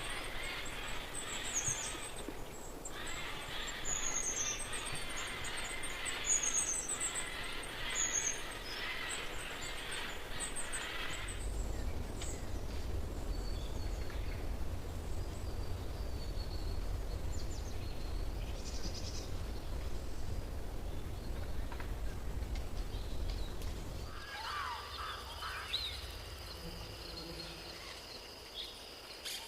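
Wild birds singing and calling outdoors: thin, high chirps repeat over a hiss for the first ten seconds or so. A low rumble follows for about thirteen seconds. Near the end, different, lower bird calls come in over a steady high buzz.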